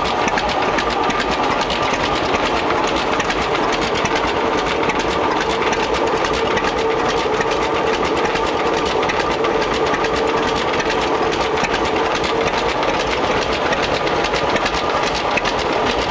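John Deere 70 tractor's two-cylinder engine running steadily, heard up close, with a fast, even mechanical clatter.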